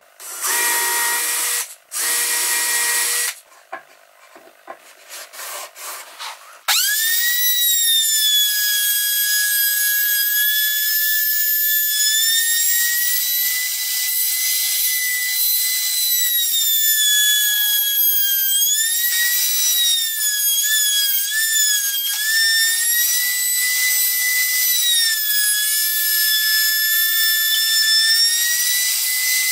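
Two short bursts of a power tool, then a few light knocks. About a quarter of the way in, an electric power tool starts and runs steadily with a high motor whine, its pitch sagging briefly several times as it takes load in the wood.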